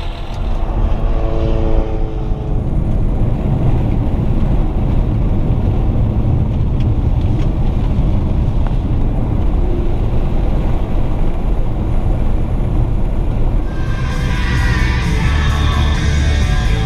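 Infiniti car driving on a gravel road, heard from inside the cabin: a steady low rumble of engine and tyres on gravel. Rock music with guitar comes in about 14 seconds in.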